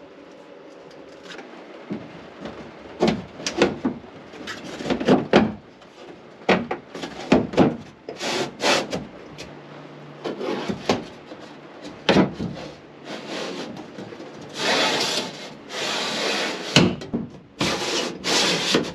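Thin wood-veneer panels being handled and slid into a bathroom cabinet's frame: irregular scraping and rubbing of wood against the frame, with a few sharp knocks. There are longer scrapes over the last few seconds.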